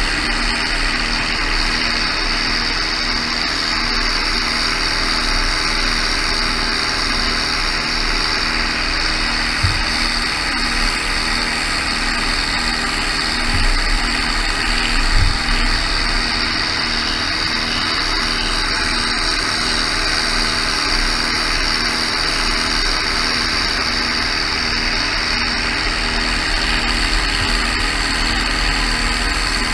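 Tractor engine running steadily while pulling an orchard sprayer, over a steady high hiss, with a few short thumps around the middle.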